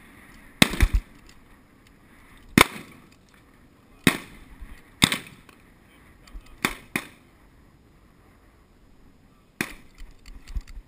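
Sharp metallic clicks and knocks from a small semi-automatic pistol and its magazine being handled over a wooden bench, about eight spread a second or more apart, the loudest a little over two and a half seconds in.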